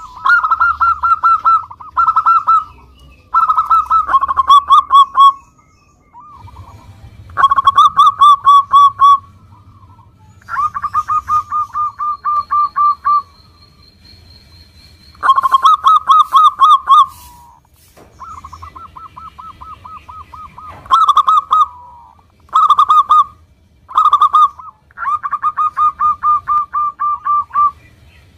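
Local zebra dove (perkutut) cooing: about ten phrases of rapid staccato coos, each one to three seconds long, with short pauses between.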